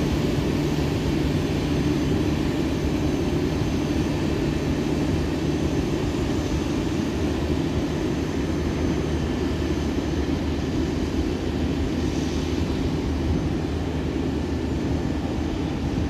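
Boeing 737-300 airliner and its towbarless pushback tug running during pushback: a steady, continuous mechanical hum with low engine tones.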